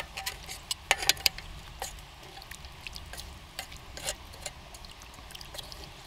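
Stew pot of beef, onion and paprika cooking on a Trangia alcohol stove: irregular small clicks and crackles, typical of the pot sizzling and being stirred, after water has been added.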